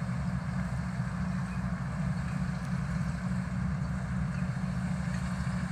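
Heavy vehicle engine running steadily, a low even drone that holds the same speed throughout.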